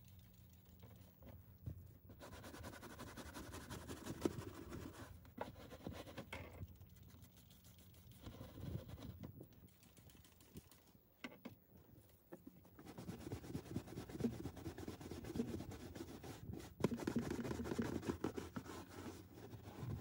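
Scratchy scrubbing on car interior fabric, in three bouts with short pauses between, and a few sharp clicks.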